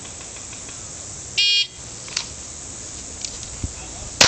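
Competition shot timer's start beep, one short high electronic tone about a second and a half in, then a single pistol shot near the end.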